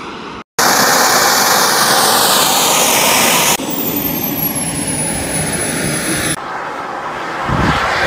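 Radio-controlled model jet engine running in several cut-together shots: first a loud rushing flyby with sweeping hiss, then a thin high whine that slowly falls in pitch over a steady rush, then a lower, quieter engine sound building again near the end. A short dropout about half a second in marks a cut.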